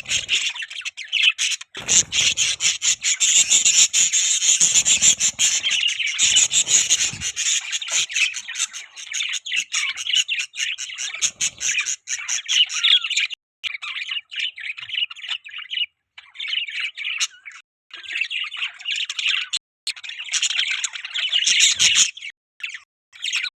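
Pet budgerigars (budgies) chirping and chattering with rapid high-pitched squawks and warbles, busy and continuous at first, then in shorter bursts with brief pauses.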